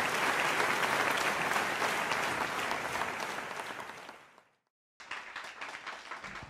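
An audience applauding, the dense clapping fading away about four seconds in. After a brief silent break, scattered, sparser clapping continues.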